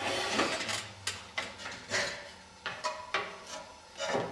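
Thin pre-cut wooden pieces handled on a workbench: a brief scrape, then a dozen or so light, irregular wooden clacks and knocks as they are picked up and set down.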